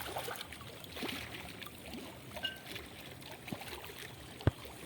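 River water splashing and trickling, with scattered light knocks and one sharp knock near the end.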